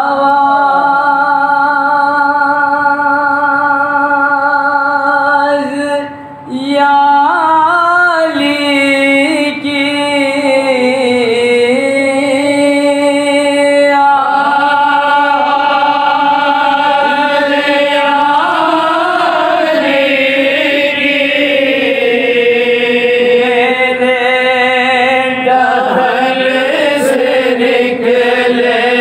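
Male voices chanting an Urdu devotional dua in long, drawn-out melodic phrases with wavering held notes, one phrase ending and a new one beginning about six seconds in.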